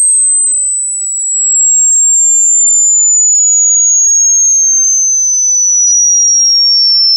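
Hearing-test sweep tone: a single loud, high-pitched pure tone gliding slowly and steadily down in pitch.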